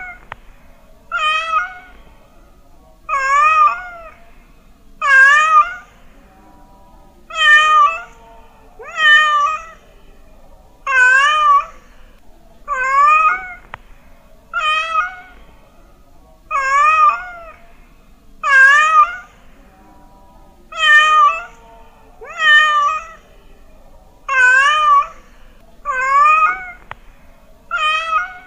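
A domestic cat meowing over and over, one short meow every one to two seconds, each with a wavering pitch.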